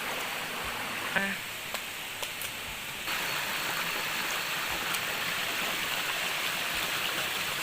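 Steady rush of flowing water, growing a little louder about three seconds in.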